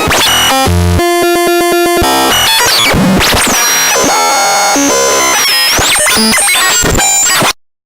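Digital glitch sound effect: harsh synthesized noise with rapid stuttering pulses and jumping, gliding electronic tones, cutting off abruptly near the end.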